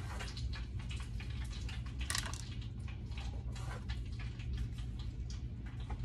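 Hands dredging raw pork chops in flour in a disposable foil pan: irregular soft pats, with small crackles and clicks from the foil, one sharper click about two seconds in. A steady low hum runs underneath.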